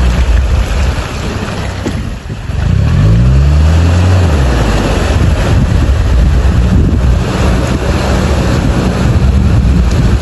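All-terrain vehicle's engine running, the revs rising about two and a half seconds in and dropping back a second or so later, with wind noise on the microphone.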